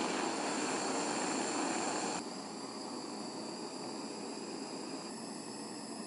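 Butane gas torch flame hissing steadily as it heats a brass branding-iron head, cutting off abruptly about two seconds in and leaving a fainter steady hiss.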